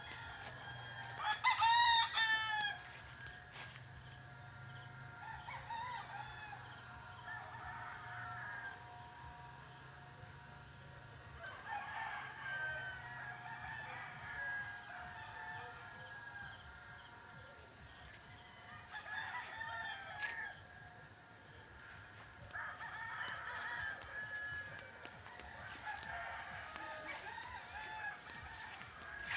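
Roosters crowing again and again across the farmyard, the loudest crow about two seconds in. A high, even chirping, nearly two a second, runs through the first half.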